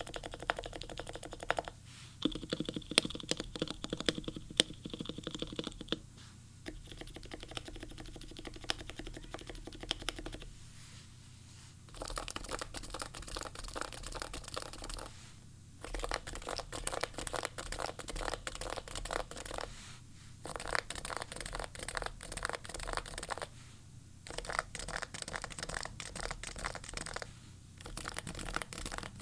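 Typing in fast runs on a Topre keyboard, a Leopold FC980C with 45g domes, Krytox-lubed sliders and silencing rings, in a heavy Norbauer Heavy-9 case. The key presses come as dense, muted clacks, with several brief pauses between runs.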